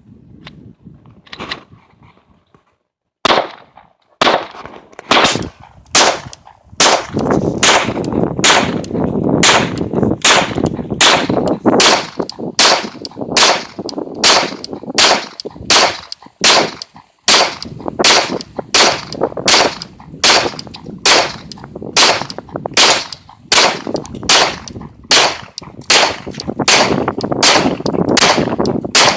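Glock 19 Gen 4 9 mm pistol fired shot after shot from a 33-round extended magazine, a little over one shot a second at a steady pace, each crack followed by echo. The shots start about three seconds in, after a couple of faint clicks.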